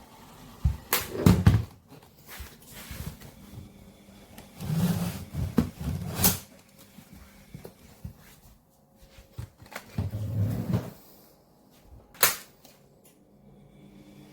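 A handful of separate knocks and clunks, with handling rustle between them, like hard objects being picked up and set down.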